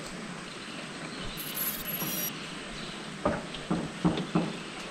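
Steady outdoor hiss of wind and river water around a small wooden boat, with four short knocks from about three to four and a half seconds in.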